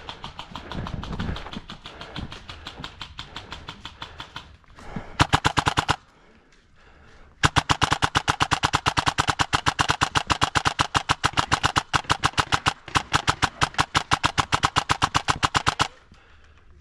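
Airsoft electric gun (AEG) firing on full auto, a rapid even rattle of shots. Fainter rapid fire runs through the first few seconds, then a loud short burst comes about five seconds in, and after a short pause a long loud burst of about eight seconds with two brief breaks.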